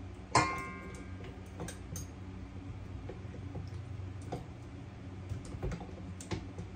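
Parts of a KitchenAid stand mixer being handled as the paddle beater and bowl are fitted: scattered light clicks and knocks, with a brief ringing knock about half a second in. A steady low hum runs underneath.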